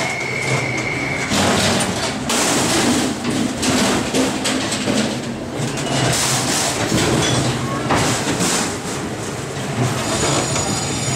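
Dark-ride car rolling and rattling along its track, with clattering throughout. A steady high tone sounds for about the first second.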